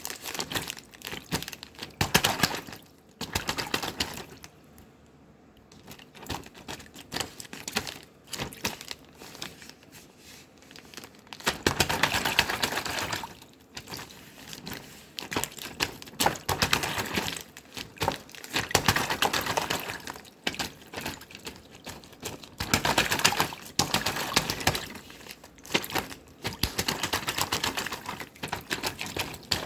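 Slime being squeezed and pressed by hand, giving rapid sticky clicking and crackling pops in bouts of a few seconds, with quieter stretches between.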